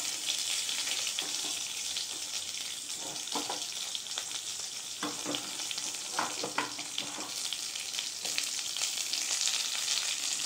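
Sliced onions sizzling steadily in hot oil in a kadai, in oil already tempered with mustard seeds and urad dal, with a few short crackles.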